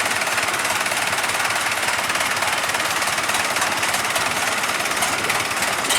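Diesel engine running steadily at close range with a fast, even clatter.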